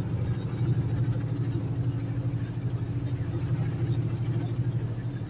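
Truck engine running steadily, heard inside the cab while driving at highway speed: an even low drone with road noise.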